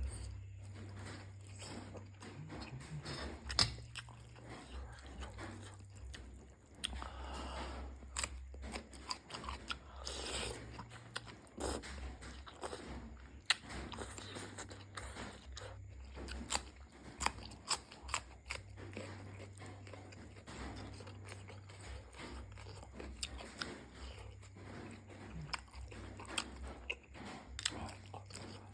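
A person eating pork noodle soup up close: chewing and biting, with frequent small sharp clicks throughout.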